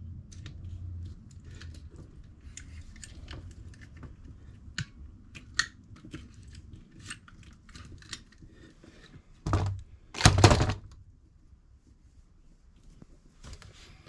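Small clicks and rustles of hand work on a coax cable end and its metal connector, with two loud bumps about nine and a half and ten and a half seconds in.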